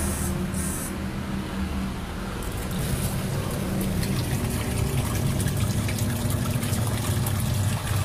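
Sharp top-loading washing machine powered up on its spin timer, giving a steady low hum with water trickling, while the spin tub does not turn.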